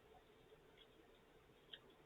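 Near silence: room tone with a few faint, short clicks, one a little louder near the end.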